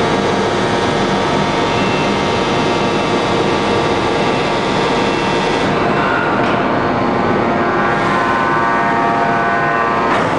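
Forging press machinery running: a steady mechanical noise with several steady humming tones. The hiss in the high end drops away about six seconds in.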